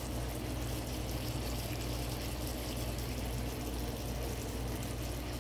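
Beef burger patties sizzling in their grease in a nonstick frying pan on low heat: a steady, even sizzle over a low steady hum.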